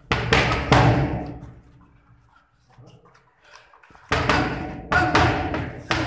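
Boxing gloves smacking into focus mitts during padwork: a quick combination of about three punches at the start, a pause of a few seconds, then another flurry of four or five punches from about four seconds in, each smack echoing.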